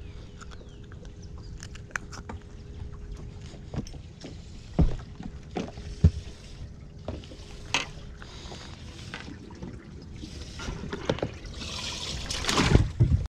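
A few scattered knocks and clicks from handling gear on a boat deck while a just-caught crappie is unhooked and carried to the livewell, then a splash in the livewell water near the end as the fish goes in.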